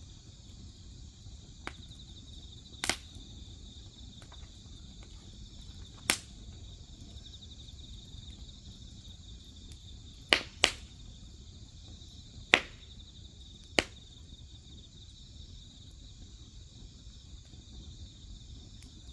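Crickets chirring steadily behind a crackling wood fire, which gives about seven sharp pops a few seconds apart, two of them close together about ten seconds in.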